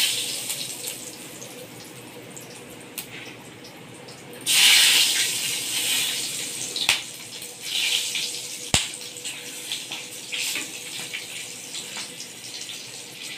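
Whole spices (green chilli, cinnamon, cumin seeds and cardamom pods) sizzling in hot oil in a kadai: the tempering (phoron) stage of a curry. The sizzle flares loudly at the start and again a few seconds in, then settles with smaller flare-ups. A single sharp click comes about two-thirds of the way through.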